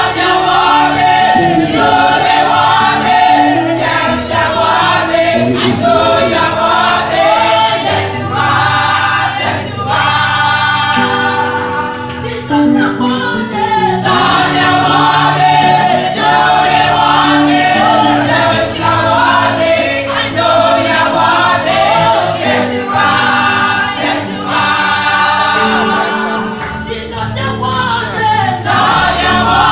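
Choir and congregation singing a gospel song with instrumental accompaniment.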